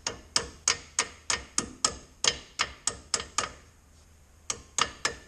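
Hammer tapping a brake pad retaining pin into a front brake caliper, steel on steel. It gives quick metallic taps at about three a second, stops for a moment, then four more taps near the end.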